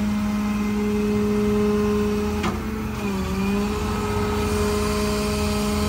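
Rollback tow truck's diesel engine running at raised PTO speed, driving the hydraulics as the Kilar bed moves, with a steady whine. A click about two and a half seconds in, and the pitch dips briefly just after three seconds as the load changes.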